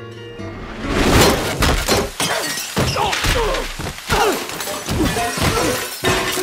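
A guitar song ends about a second in, and a loud crash follows: glass and crockery shattering, heavy thuds, and a dense run of clattering strikes with ringing tones that fall in pitch, as a whole kitchen's contents and several bodies are smashed about at once.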